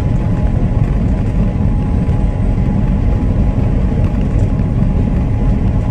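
Steady low rumble of tires, road and engine inside the cab of a moving vehicle at highway speed, with a faint thin steady tone above it.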